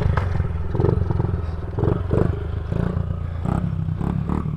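Small dirt bike engine idling steadily, with a few light knocks and clatter over it.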